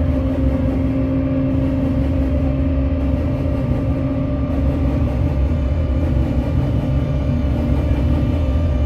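Loud, steady electronic noise drone: a dense low rumble under several held hum tones, unchanging throughout.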